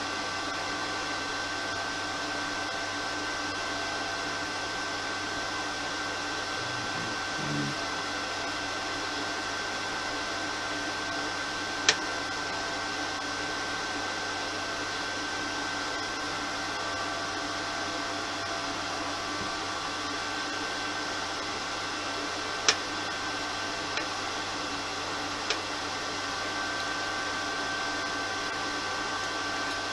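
Cooling fan of a Kedr MultiTIG 2000P inverter TIG welder running steadily, a constant fan noise with a few faint steady tones in it. Four sharp clicks break it, the loudest two about twelve seconds and about twenty-three seconds in.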